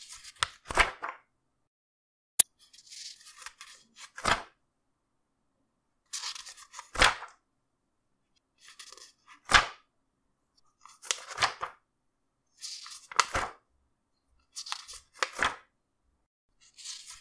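Paper pages turned one after another, about every two seconds: each turn is a short rustle ending in a crisp flap as the page falls. A single sharp click comes about two and a half seconds in.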